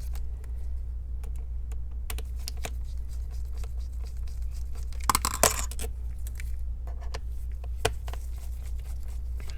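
Small Phillips screwdriver turning out the tiny bottom-cover screws of a Lenovo Legion Y740 laptop: scattered light clicks and scrapes, with a brief louder rattle about five seconds in.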